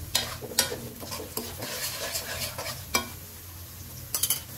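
Sliced onions sizzling in hot oil in an aluminium karahi, with a spatula stirring them and scraping and knocking against the pan several times.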